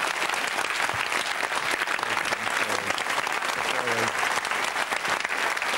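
Studio audience applauding steadily, with faint voices underneath.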